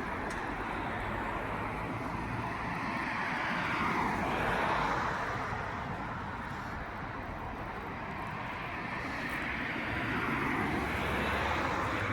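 Road traffic: cars passing by with tyre and engine noise, one swelling past about four seconds in and another building near the end.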